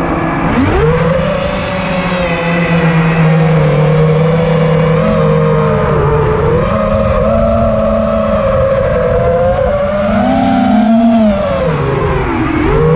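Racing quadcopter's four Lumenier 2206 2350kV brushless motors spinning DALPROPS T5046C propellers, heard from the onboard camera. The whine rises sharply as the throttle comes up at the start, then wavers up and down with the throttle, dipping briefly about six seconds in and again near the end.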